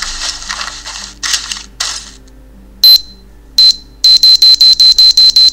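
Bomb sound effects played from a ringtone app: a hissing noise that breaks off into two short bursts, then a loud, high electronic time-bomb beep, twice, then about seven times a second as the countdown speeds up.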